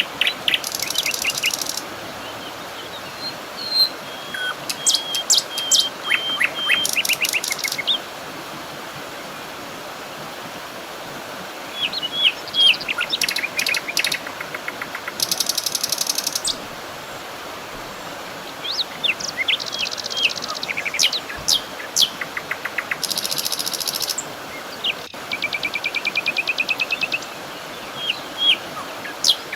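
Songbirds chirping and trilling in bouts, with short high calls and fast rattling trills, pausing for a few seconds between bouts, over a steady background hiss.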